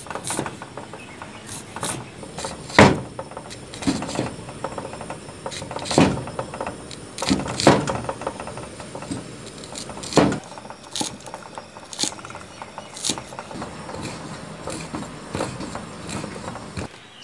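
A broad-bladed kitchen knife chopping on a thick wooden chopping board, slicing red onion and then spring onion: a run of irregular knocks, a few much louder than the rest.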